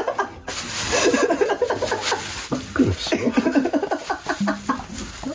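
Hearty laughter in many short, repeated bursts.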